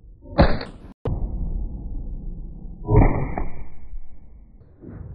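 Two shots from a 12-gauge side-by-side hammer double-barrel shotgun, about two and a half seconds apart, each followed by a rumbling echo.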